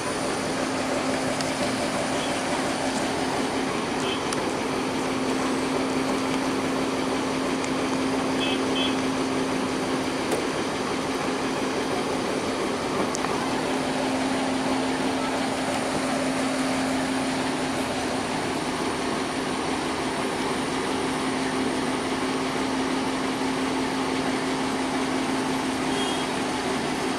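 Diesel passenger train at a station: a steady engine hum with one constant drone note under an even rumbling noise, with a few faint short high chirps.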